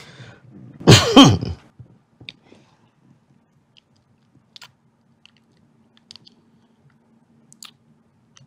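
Kissing: a short loud voice-like sound about a second in, then soft wet lip smacks and clicks scattered over the following seconds.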